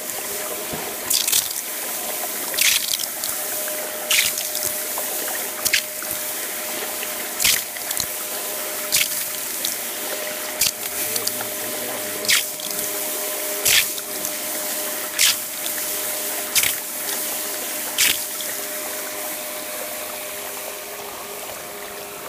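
Water quenching the hot face of an old Williams anvil: a steady watery hiss, with a short sharp splash or surge about every second and a half.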